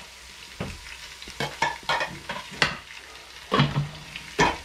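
A spoon stirring, scraping and knocking against a cooking pot in irregular strokes, over a low sizzle of food frying.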